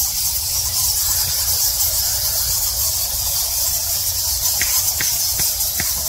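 A huge colony of Geoffroy's rousette fruit bats roosting in a cave, a dense, steady chorus of high-pitched squeaks and chirps, described as a little overwhelming. A low rumble runs underneath, and a few short clicks come near the end.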